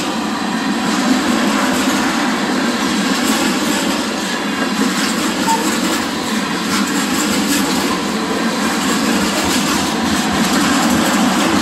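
Railroad tank cars of a freight oil train rolling past: steel wheels running on the rails in a steady rumble and rattle, with faint ticks of the wheels.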